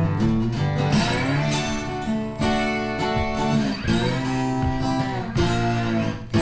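Background music: an acoustic guitar strumming chords, changing chord about every second.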